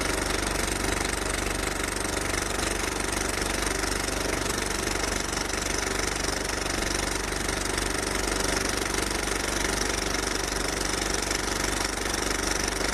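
A truck's diesel engine running steadily, an even noise that does not change.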